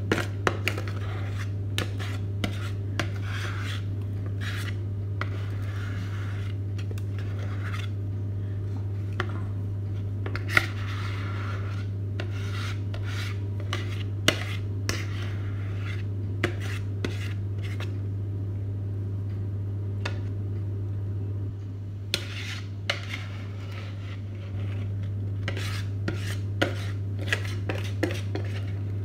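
Cake batter being scraped out of a mixing bowl into cake pans: repeated scrapes, rubs and light knocks of utensil and bowl. Underneath runs a steady low hum, which drops for about three seconds near the end.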